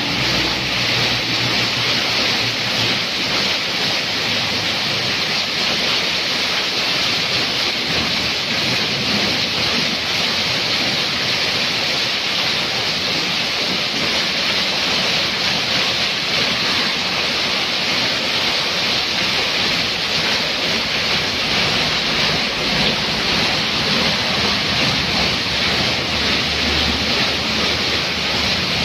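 Heavy downpour: rain falling hard on the road and runoff pouring off a roof edge in a steady hiss. A truck's engine drones under the rain for the first few seconds, and motorcycles pass through the wet road near the end.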